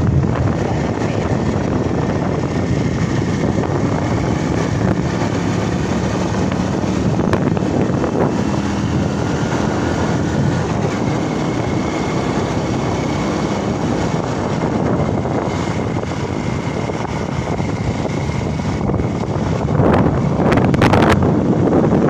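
Wind buffeting the microphone over the steady running of a moving vehicle's engine, with the buffeting growing louder near the end.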